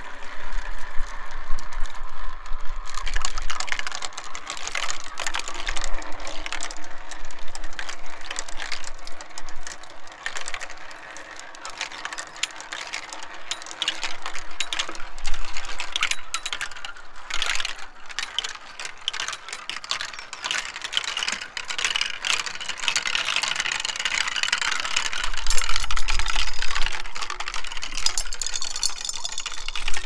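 Glass marbles rolling along a plastic marble-run track in running water, clicking against each other and the plastic in a dense, irregular patter over a steady trickle of water. Gusts of wind rumble on the microphone now and then, loudest near the end.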